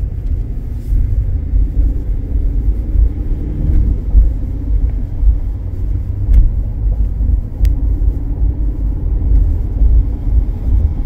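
Steady low rumble of engine and road noise inside the cab of a Ford Super Duty pickup with the 6.7 L Power Stroke V8 diesel, driving in traffic.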